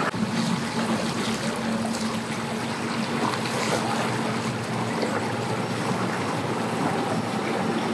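Sea-Doo Fish Pro personal watercraft engine running at low speed with a steady hum, over water rushing and splashing around the hull.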